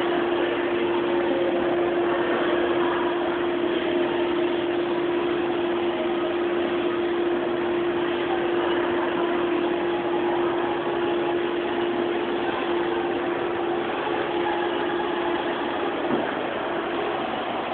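Steady mechanical hum with a constant droning tone and a bed of even noise, unchanging throughout.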